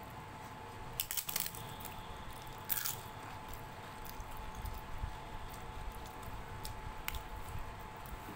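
Close-up eating sounds: papad crunching in two short bursts, about a second in and again near three seconds, then soft squishing and chewing of mashed khichdi eaten by hand, with scattered small clicks.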